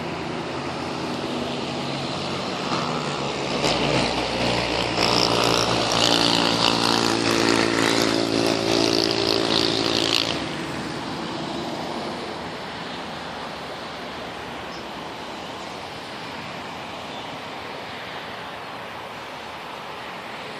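City traffic ambience: a steady wash of distant road traffic, with one motor vehicle's engine passing close and loud from about four to ten seconds in before dropping back into the background hum.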